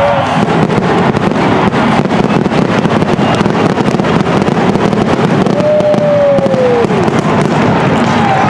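Fireworks going off overhead in a rapid, crackling run of reports, over a steady crowd din. A brief falling tone sounds about six seconds in.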